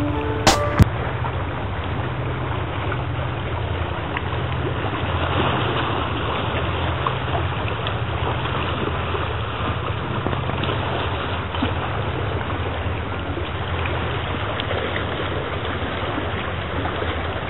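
Small sea waves washing and lapping against shoreline rocks, with a steady low rumble underneath.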